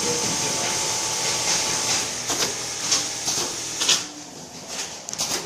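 Automatic pattern sewing machine running with a steady hissing whir and several sharp clicks; the noise falls away about four seconds in.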